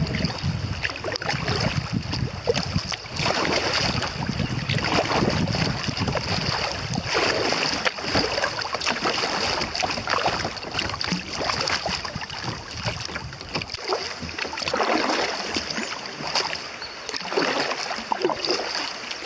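A kayak running down choppy river water, with water rushing and lapping along the hull, paddle strokes splashing every couple of seconds, and wind rumbling on the microphone. About two-thirds of the way through, the low rumble drops away as the water goes calm. A steady high hiss runs underneath.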